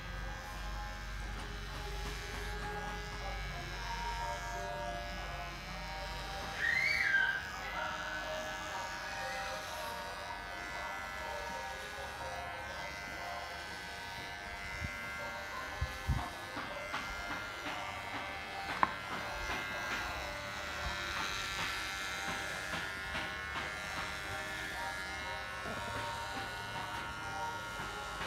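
Cordless electric hair clipper buzzing steadily as it shaves a head close to the scalp, with a brief louder sound about seven seconds in and a few sharp clicks later on.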